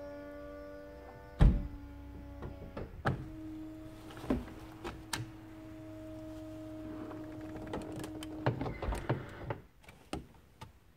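2009 BMW 1 Series convertible's electric soft top closing. The motor runs with a steady whine that shifts in pitch twice, with a clunk about a second and a half in and clicks and knocks as the roof frame moves. A flurry of clicks comes as the hood latches onto the windscreen frame, and the motor stops about nine and a half seconds in.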